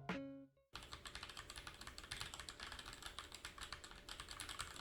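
Fast typing on a Dierya DK66 mechanical keyboard with Gateron Red linear switches: a quite quiet, rapid stream of keystroke clicks, starting about a second in.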